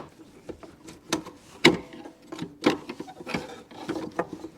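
Screwdriver prying at a stout mower-seat suspension spring: an irregular string of sharp metal clicks and knocks as the tool slips and bites against the spring and frame.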